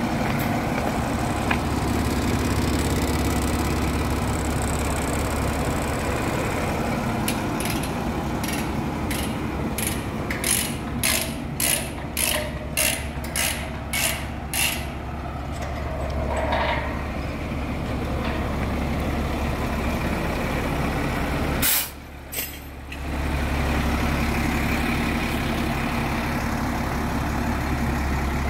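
Diesel engine of an International 4800 drill rig truck running steadily. Partway through comes a run of sharp metallic clicks, about two a second for some seven seconds. Near the end there is one short loud burst, and the engine sound briefly drops.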